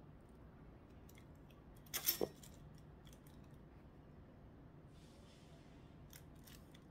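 Faint clicks and crackles of hands handling a succulent's stems and roots over a plastic sheet, with a short crunchy burst of three quick sounds about two seconds in and a soft rustle near five seconds.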